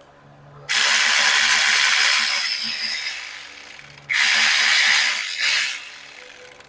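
Power tool spinning a 15 mm socket on a long extension to back out a starter bolt. It runs in three bursts: a long one that trails off, a second of about a second, and a short last one.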